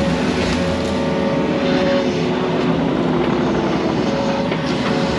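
Yanmar mini excavator's diesel engine running steadily under work, with faint knocks over the engine note.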